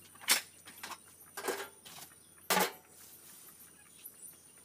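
Lid and plastic bag being taken off a blue plastic drum: three short knocks and rustles of plastic, the first about a third of a second in and the sharpest, the others about a second apart.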